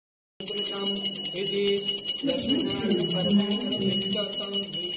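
Bells rung rapidly and without a break, a steady high shimmering ring, with voices singing or chanting underneath. It starts suddenly about half a second in.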